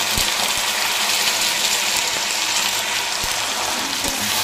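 Raw, just-washed chicken pieces sizzling in hot mustard oil in a kadai, a steady hiss with a few light taps of the spatula.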